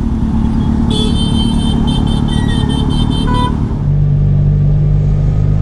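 Kawasaki Z800 inline-four engine running in slow city traffic, with a vehicle horn honking in rapid pulses for a couple of seconds from about a second in. From about four seconds in the engine settles into a steadier, stronger note.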